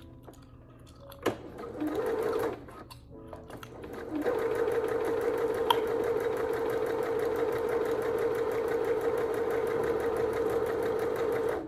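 Janome Magnolia 7330 electric sewing machine stitching: a short burst of stitches about two seconds in, then a steady run with an even motor hum and a fast, regular stitch rhythm from about four seconds in, stopping near the end.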